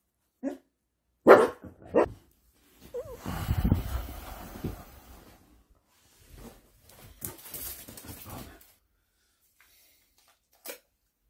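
A Welsh corgi barking: three short barks in the first two seconds, the second the loudest, followed by softer shuffling noise.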